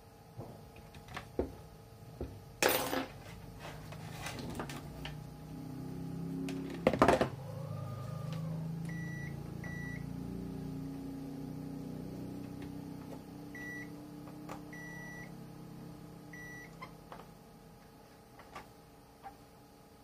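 A digital multimeter beeping: five or six short beeps at one pitch, two close together near the middle and a few more spaced out later, one a little longer. Around them come clicks and knocks from handling tools and the meter on the bench, the loudest a sharp knock about seven seconds in, with a low hum swelling and fading underneath.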